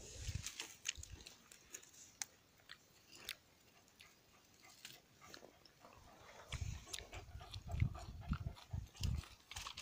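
Dry grass and twigs crackling as plants are handled and a dog pushes through the undergrowth. In the second half, a dog snuffles with its nose in the brush in short repeated bursts.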